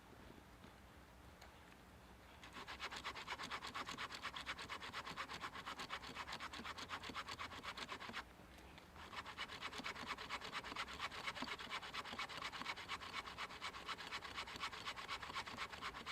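Large 30-inch handsaw cutting through a log, its teeth rasping in quick repeated strokes. The sawing starts a couple of seconds in, stops briefly about eight seconds in and starts again about a second later.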